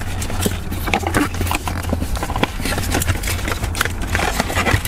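Cardboard product box being handled and opened with gloved hands: a quick, irregular run of small taps, knocks and scrapes from the box and its inner tray, over a steady low hum.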